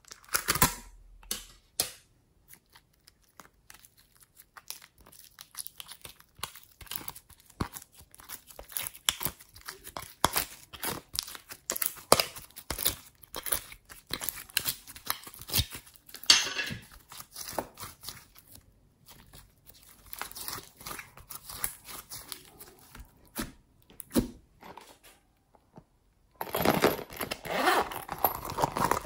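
Slime squished and pressed by hand in a plastic tub, with many small crackles and sticky pops. After a brief silence near the end, a denser run of crackling follows.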